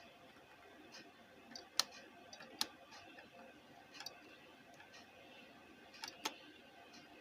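A few scattered sharp clicks, with two close together about six seconds in: buttons on a Kenwood car stereo's front panel being pressed to test it after repair.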